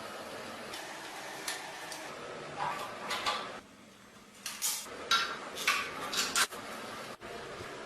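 Metal parts clinking and clattering in several short bursts as they are handled, over a steady background hiss.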